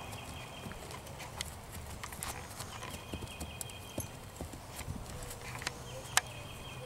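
Hooves of a young colt and a paint mare footfalling on grass as the colt bucks and rears in play: scattered, irregular thuds and knocks, with one sharp knock about six seconds in. A short high trill repeats three times in the background.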